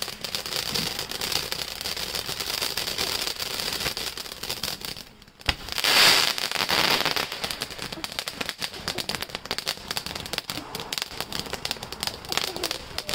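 Epic Fireworks 'Fantasia' multi-stage fountain mine burning: a steady hiss with dense crackling sparks. After a short lull about five seconds in, a louder rushing burst comes as the next, taller stage fires, and then the crackling fountain carries on.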